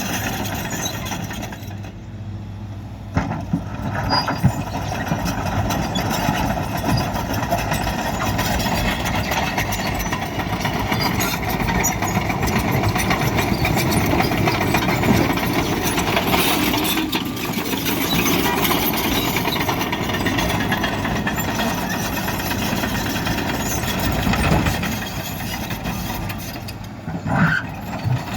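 Diesel engine of a Caterpillar 963D track loader running steadily at road works, dipping briefly about two seconds in, with a few short knocks.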